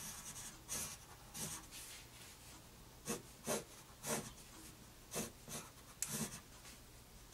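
Graphite pencil scratching on paper in a dozen or so short strokes, about two a second, drawing straight tread lines.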